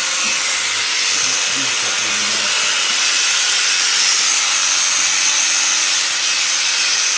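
Sheep being shorn: a steady rasping hiss of shearing blades cutting through the fleece, over a steady machine hum.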